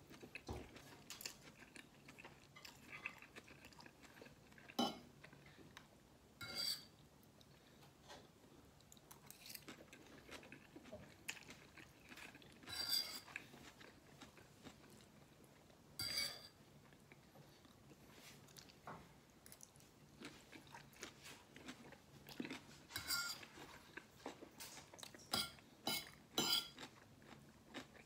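Close-up eating sounds of a man eating noodles: soft chewing and slurping, broken by short sharp clicks of a metal fork against a plate every few seconds.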